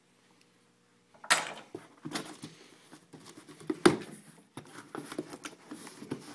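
Cardboard shipping box being opened by hand after its packing tape is slit: a loud rip of tape and cardboard about a second in, then crackling, scraping and knocks of the flaps, with one sharp knock a little before the fourth second.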